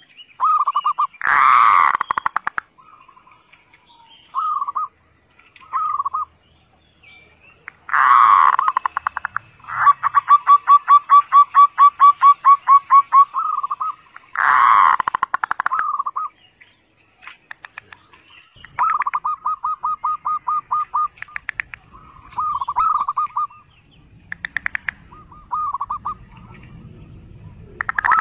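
Zebra dove (perkutut) calling in its 'kerot' (ngerot) style: a series of rolling coos, each a quick run of pulses around one pitch. Three louder notes stand out, and one long rattling run in the middle goes at about five pulses a second.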